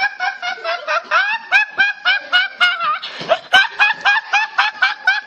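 A teenage boy's high-pitched, rapid laughter, pulsing about five times a second, with a brief noisy break for breath about three seconds in.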